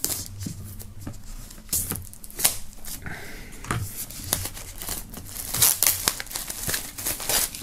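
Plastic shrink-wrap film being slit along its heat-sealed seam with a knife blade, then pulled and peeled off a cardboard box, crinkling and crackling with scattered sharp clicks.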